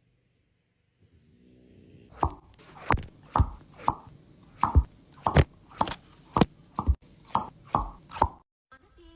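About a dozen sharp knocks at an even pace, roughly two a second.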